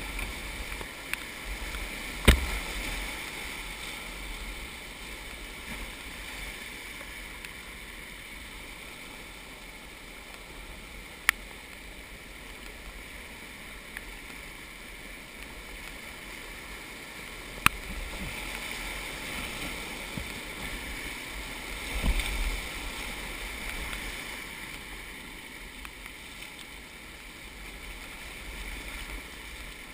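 Whitewater rushing and splashing around a small boat in a shallow rocky rapid, a steady hiss that swells louder a little past the middle. Three sharp knocks cut through it, spread several seconds apart.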